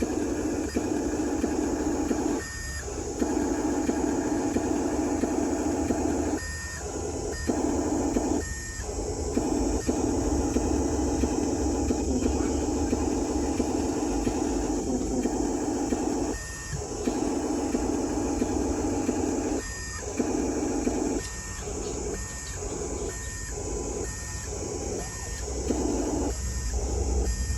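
Small electric gear motors of a Huina radio-controlled excavator and truck whirring, stopping and starting again and again as the controls are worked, in long runs at first and in quick short spurts near the end.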